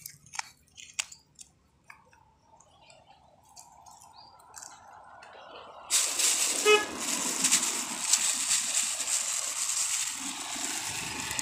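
A few light clicks and scrapes of a hand pressing seeds into wet, gravelly soil. About six seconds in, a loud, steady hiss of rain comes in suddenly and keeps on, with a brief horn toot just after it starts.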